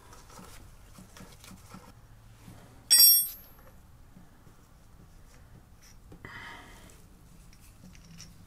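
A sharp metallic clink with a brief high ring about three seconds in, from small metal parts being handled while the oil filter cover bolts are taken out of the engine case. A softer scrape follows around six seconds, over faint handling noise.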